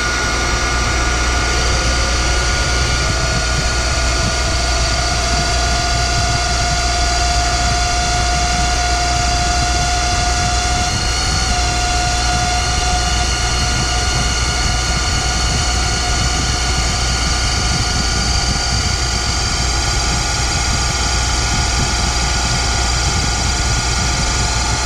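Boyar Schultz Challenger surface grinder's electric motor and spindle running steadily just after start-up: a steady hum with high whining tones, one whine swelling a few seconds in and fading about halfway. The bearings sound smooth, which the owner takes as the bearings being real happy.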